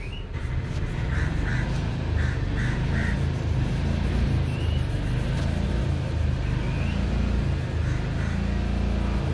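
Steady low rumble with short animal calls over it: a quick series of four or five about a second in, another pair near the end, and a few brief rising chirps in between.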